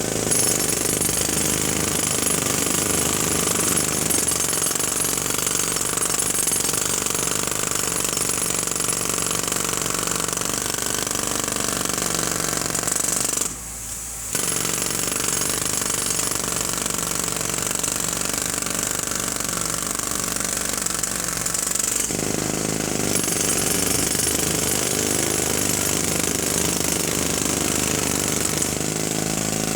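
Jackhammer hammering continuously, with a brief break of under a second about halfway through before it starts again.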